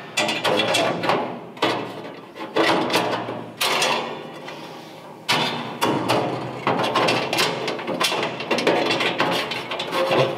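Metal flame tamers clanking against the steel firebox of a gas grill as they are slid over the burners and dropped into their notches. It is a run of sharp metal knocks and scrapes, each ringing briefly.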